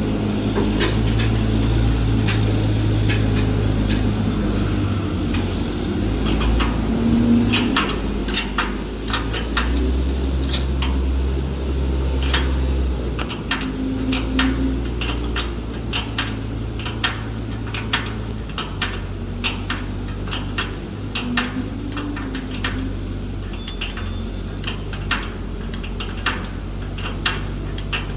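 Hand tools clicking and tapping against metal, in many short, sharp knocks, while the band saw cutting machine is being adjusted. A steady low machine hum runs underneath.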